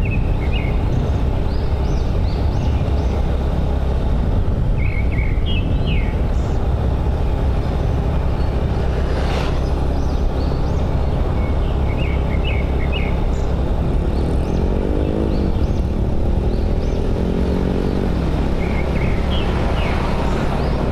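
Motorbike engine running steadily while riding, with wind rushing over the microphone. Birds chirp in short bursts several times. About two-thirds of the way through, an engine note rises and then falls.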